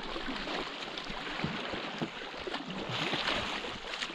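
River water rushing and splashing around kayaks, with a louder stretch of splashing about three seconds in.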